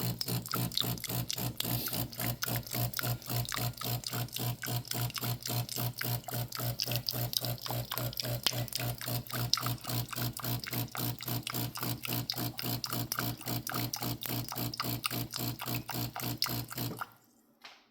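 De'Longhi Magnifica Evo espresso machine's water pump running during a cleaning cycle: fast, even pulses, about four to five a second, over a steady low hum. It stops abruptly near the end.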